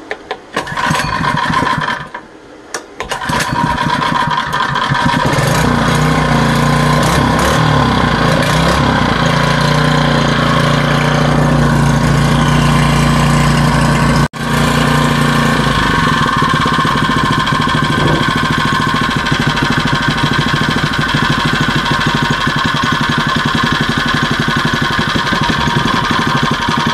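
Predator 79cc single-cylinder four-stroke engine, brand new on its first run: it runs for about a second, goes quiet, then starts again about three seconds in and runs steadily. The sound cuts out for an instant near the middle.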